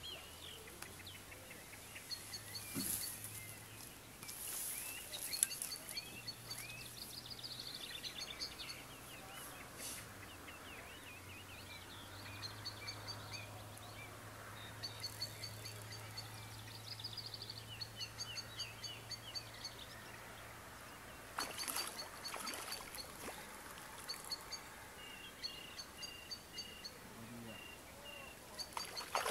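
Small birds calling, with many short high chirps repeated in quick trains and other calls joining in, over faint outdoor background noise. A few brief rushes of hiss break in now and then.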